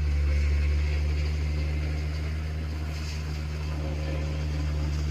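A steady low hum, like an engine or motor idling, holding an even pitch without change.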